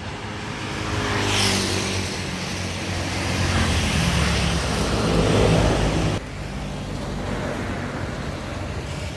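Road traffic: motor vehicle engines running close by, swelling loudest about five seconds in as one passes. The sound changes abruptly about six seconds in to a steadier, quieter engine and road noise.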